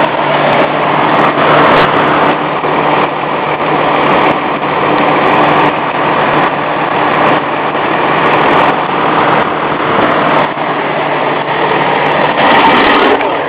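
Engine of a Vac-Con sewer cleaner truck running steadily, heard close up with an even hum.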